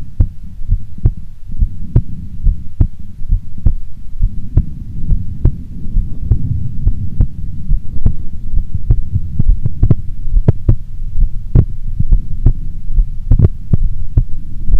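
A woman's heartbeat recorded close against the chest: steady low muffled thuds, some with a sharper click, over a constant low rumble.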